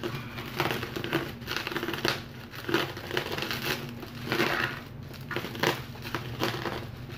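Plastic bubble wrap crinkling and crackling in irregular bursts as a wrapped parcel is handled and slit open with a box cutter.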